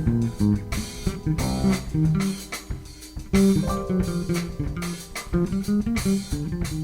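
Background music: a live cover band playing with bass guitar, plucked guitar and drum kit.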